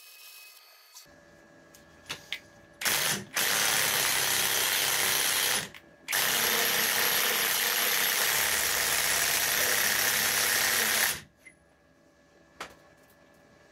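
Cordless impact wrench hammering a bolt threaded through nuts welded onto a seized rear wheel bearing hub, trying to jack the hub out. It runs in three loud, steady bursts: a short one about three seconds in, one of about two seconds, then a long one of about five seconds that stops abruptly.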